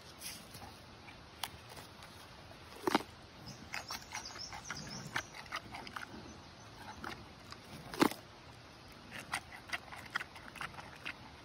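Giant panda crunching and chewing a fresh bamboo shoot: scattered crisp snaps and bites, the loudest about three seconds and eight seconds in.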